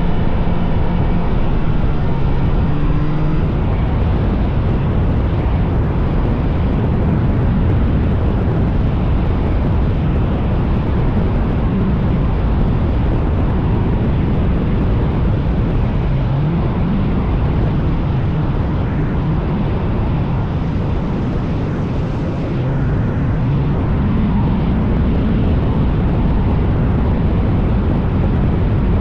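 Vintage snowmobile engine running steadily under way, its pitch rising and falling a little with throttle, under a dense rush of wind and motion noise.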